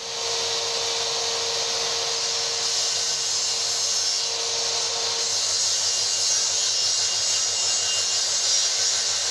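Makita SP6000 plunge saw starting and running steadily as it cuts along its guide rail through a kitchen worktop.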